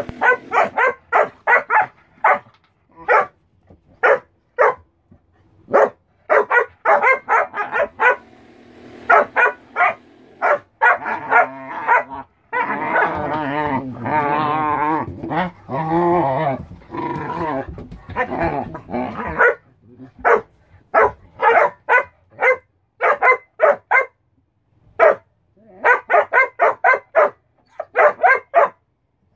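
German shorthaired pointers barking at each other in quick runs of short barks, with a long, wavering, drawn-out vocal stretch of several seconds near the middle.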